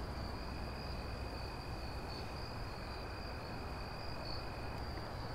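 Crickets trilling steadily in night ambience: a high continuous trill, with a fainter, lower steady tone that stops near the end, over a low background rumble.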